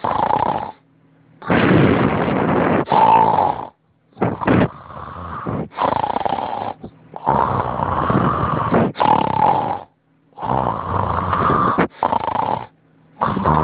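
Loud, rough snoring: about four snores, roughly one every three seconds, each made of two rasping breaths in quick succession with short pauses between snores.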